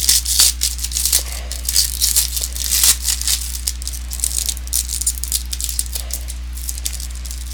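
Trading cards being handled and flipped through: a quick, irregular run of light clicks and rustles over a steady low electrical hum.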